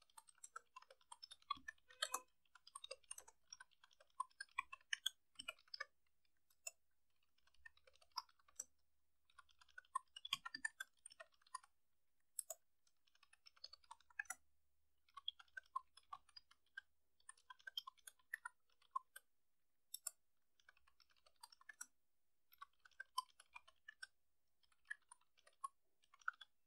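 Faint typing on a computer keyboard: quick runs of key clicks a second or two long, separated by short pauses.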